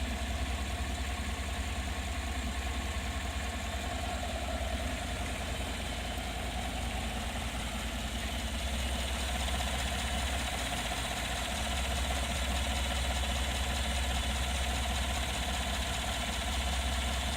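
Vehicle engine idling steadily under an open hood, a low rumble with a steady mid-pitched hum over it, getting a little louder about halfway through. It is being recorded for an unexplained odd noise the owner hears from it.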